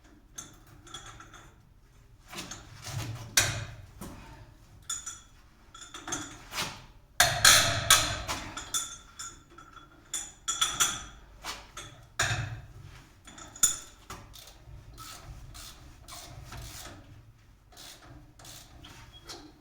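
Hand tools working on the metal of a GAZelle's rear axle as its differential is unbolted for removal: an irregular run of knocks, clinks and scrapes, loudest about seven to eight seconds in.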